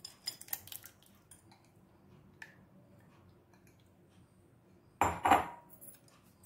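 Thick tamarind and jaggery pulp being tipped from a glass bowl into a stainless steel mesh strainer over another glass bowl: a few light clinks of glass and metal in the first second, a single tap a little later, and a louder clatter of kitchenware about five seconds in.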